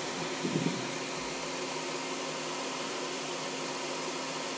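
Benchtop solder fume extractor fan running steadily, an even rushing of air with a faint hum. A brief bump sounds about half a second in.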